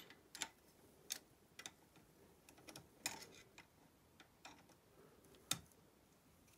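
Faint, irregular metal clicks and ticks of a ring spanner and screwdriver on a valve rocker arm's adjusting screw and locknut as the locknut is tightened after setting the valve clearance. The sharpest click comes a little after five seconds in.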